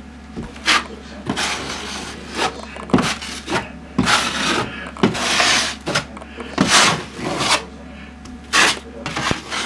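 Steel drywall taping knife scraping and spreading joint compound over fiberglass-taped drywall patches, in a series of short, irregular strokes against the wall.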